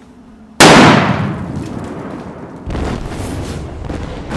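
A firecracker exploding: one sharp, very loud bang about half a second in that dies away slowly. About two seconds later a second, duller rumbling blast follows.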